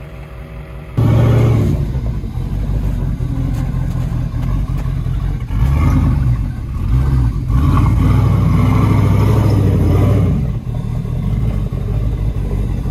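A steady air-compressor hum for about a second, then a lifted Toyota 4Runner's engine revving loudly, rising and falling repeatedly as it tries to drive out of a snowy rut where it is stuck.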